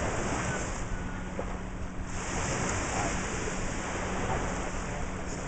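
Small Lake Michigan waves washing onto a sandy shore, with wind buffeting the microphone in a steady low rumble.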